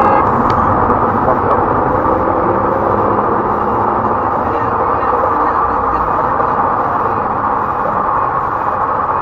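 Steady road and traffic noise recorded from inside a moving car by its dashcam: an even rumble and hiss with no distinct events.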